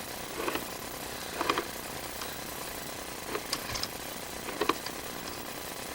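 Sewer inspection camera's push cable being fed through a drain line: a few short, light knocks and clicks over a steady hum.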